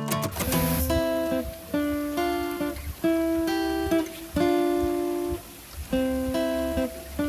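Background music: acoustic guitar playing plucked and strummed notes in a steady rhythm.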